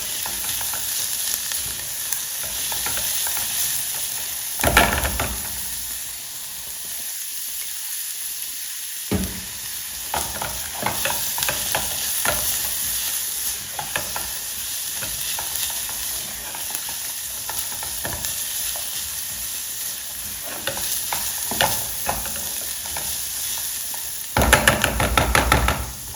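Chopped onions frying in oil in a pot, a steady sizzle, while a utensil stirs them, scraping and knocking against the pot. The knocking gets louder about five seconds in and again near the end.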